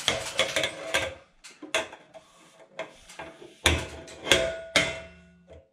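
Knocks and clatter of metal profiles being handled and set in place, with a short metallic ring after the loudest knocks about four seconds in.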